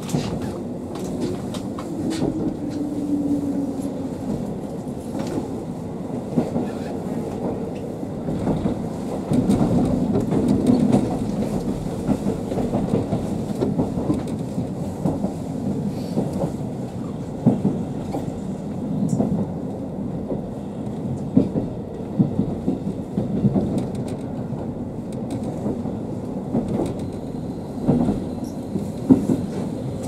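Steady rumble of engine and wheels inside a diesel railcar on the move, with occasional sharp clicks of the wheels over rail joints.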